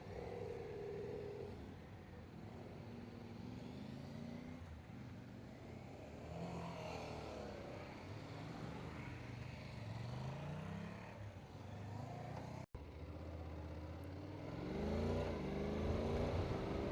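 Motorcycle engine accelerating away, its pitch rising in a series of climbs as it pulls up through the gears.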